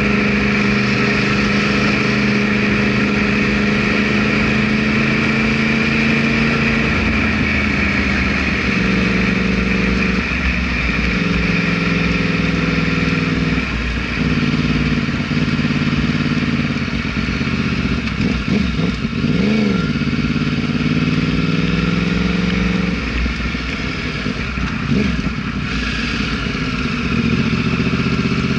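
Yamaha R1 motorcycle's inline-four engine running under way, its note stepping and sliding in pitch as the revs rise and fall, with a quick rev up and back down about two-thirds of the way through.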